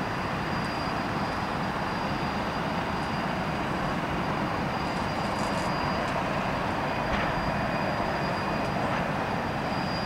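Boeing 737's twin jet engines at taxi power as the airliner turns onto the runway: a steady, even rumble and hiss with a thin steady high tone over it.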